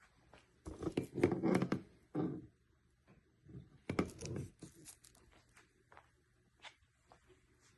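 Handling noise from packaging or parts being moved: two bursts of irregular rustling and scraping, one about a second in and one about four seconds in, with scattered light clicks and knocks.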